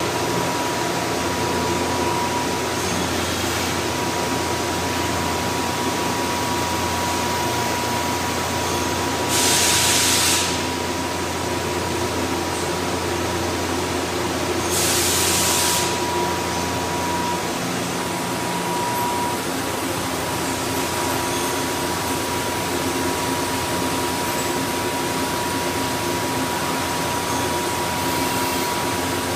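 Doosan Puma TT1800SY CNC lathe running a machining cycle, coolant spraying inside the enclosure over a steady machine noise with a thin steady whine. Two short, louder hiss bursts come about ten and fifteen seconds in, and a low hum drops out about seventeen seconds in.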